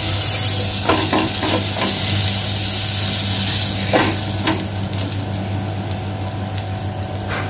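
Garlic butter sizzling steadily on a hot iron tawa as a slice of bread is wiped through it and set down to fry, with a few short scrapes of the bread on the pan about a second in and around four seconds in.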